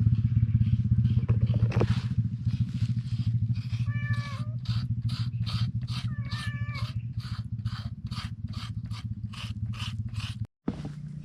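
A cat meowing twice, over a steady low hum and a run of even scraping strokes about three a second.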